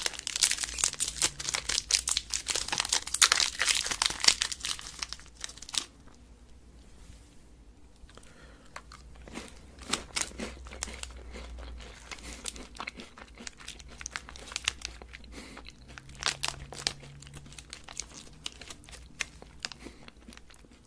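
Close-miked crinkling and crackling of a Kit Kat wrapper for about the first six seconds. After that, quieter crunching and chewing of the wafer bar with scattered clicks.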